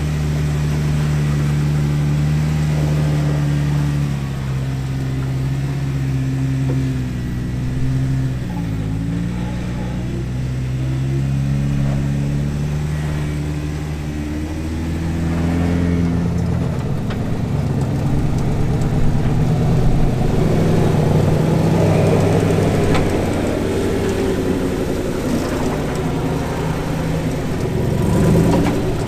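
Engine of an off-road 4x4 crawling over rock at low speed. It runs at a steady pitch for about the first half, then turns rougher and a little louder with revving in the second half.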